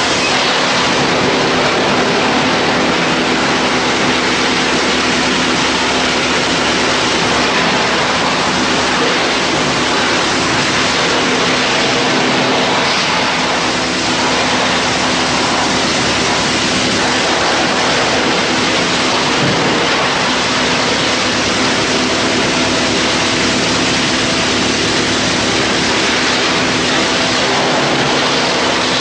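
YMPJ-218 drum wood chipper running: a loud, steady mechanical roar with an underlying hum, unchanging throughout.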